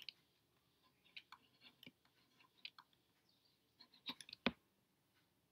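Faint, scattered clicks and taps of a stylus on a tablet screen while handwriting numbers, with one sharper tap about four and a half seconds in.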